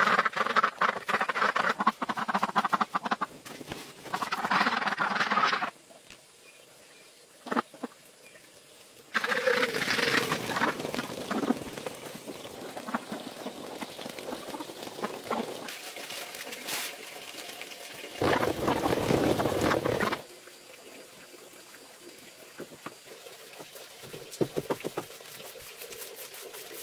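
A flock of white domestic ducks crowding in to feed on scattered grain, quacking and chattering their bills, in several loud stretches separated by quieter gaps.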